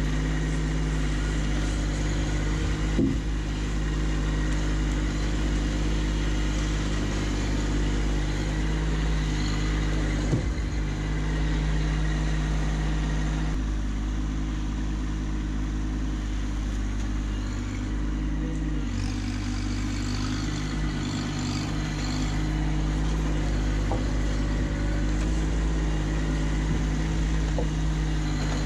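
Kubota B2601 compact tractor's three-cylinder diesel engine running steadily as the tractor drives about with its grapple. Its note shifts for a few seconds midway, and two short knocks come about three and ten seconds in.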